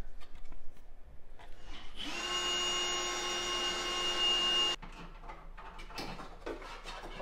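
Cordless drill spinning up and running at a steady speed for nearly three seconds as it bores a half-inch hole through the sheet metal of a car's trunk lid, then stopping abruptly. Light handling knocks come before and after it.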